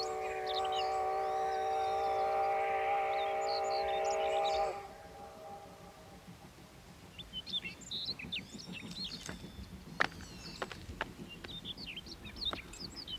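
Train horn blowing one long, steady chord for about five seconds, then cutting off with a short echoing tail. Faint birds chirp afterwards.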